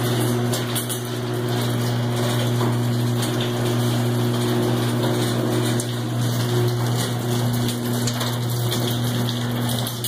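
Overhead garage door opener running as it raises a sectional garage door: a steady electric-motor hum over the noise of the moving door.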